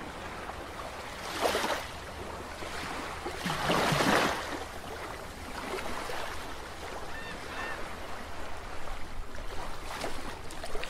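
Sound effect of rushing, surf-like water, swelling up twice, briefly about a second and a half in and more strongly around four seconds in, with a few faint chirps near the seven-second mark.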